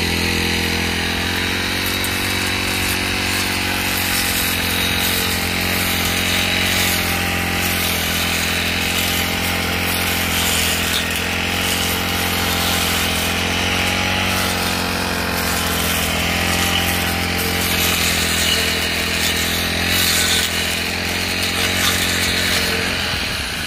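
Brush cutter's small petrol engine held at a low, steady speed while its freshly sharpened metal blade cuts weeds. The engine drops back just before the end.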